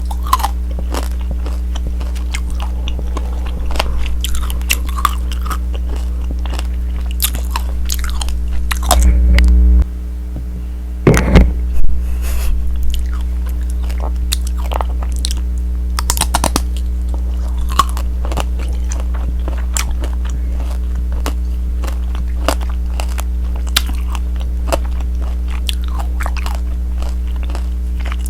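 Close-miked biting and chewing of tanghulu: the hard candied-sugar shell cracks and crunches between the teeth, in many sharp crunches over a steady low hum. The loudest moments are a few heavier bumps and bites about nine to twelve seconds in.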